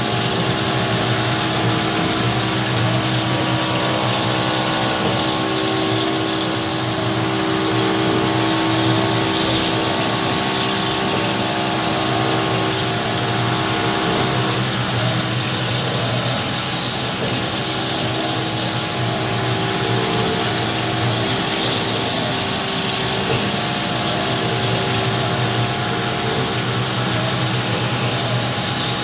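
Homemade CNC milling machine cutting a clamped workpiece with an end mill under flood coolant. It makes a steady machine hum with several held tones over a constant hiss.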